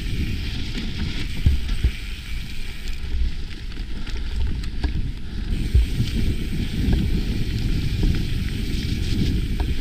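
Mountain bike descending dirt singletrack at speed: wind buffeting the microphone over the rolling tyres, with scattered light clicks and rattles from the bike.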